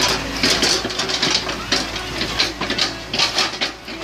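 An engine running steadily with a low hum, and a dozen or so sharp, irregular clicks or rattles over it.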